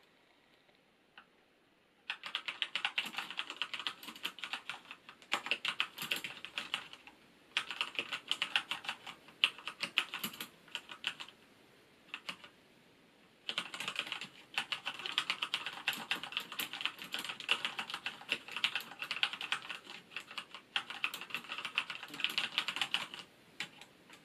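Fast typing on a Corsair Strafe mechanical keyboard with Cherry MX Red linear switches: dense runs of rapid keystroke clicks, starting about two seconds in, broken by a few short pauses and one longer unbroken run in the second half.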